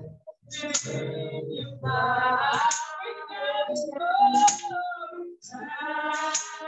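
A woman singing in phrases with short breaks between them, her pitch sliding on the held notes.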